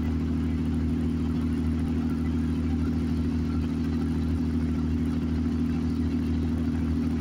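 Steady drone of a car driving, heard from inside the cabin: an even hum from the engine and drivetrain with tyre hiss from the rain-wet road.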